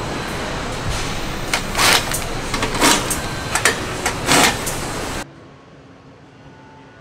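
Assembly-line factory noise with four short, loud bursts from a handheld power tool fastening parts to a car's front end, about a second apart. About five seconds in it cuts off abruptly to a much quieter background.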